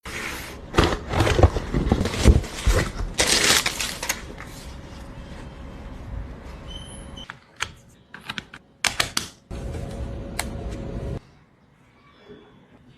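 Unboxing a keyboard: loud rustling and handling of the packaging for the first few seconds, then a few sharp separate clicks and knocks about halfway through.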